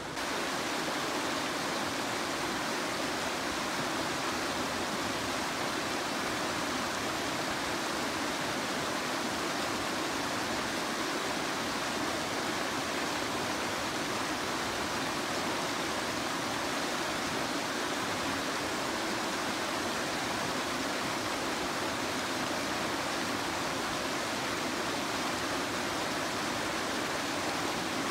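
Steady rush of river water pouring over an inflatable rubber weir and churning white into the pool below.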